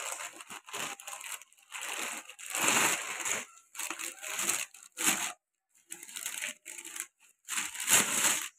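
Plastic packing bags crinkling and rustling in repeated bursts as they are pulled off a new clutch plate.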